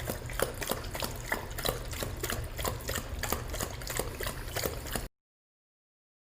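Dog lapping water from a drinking fountain: quick wet laps, about three a second, that stop abruptly about five seconds in.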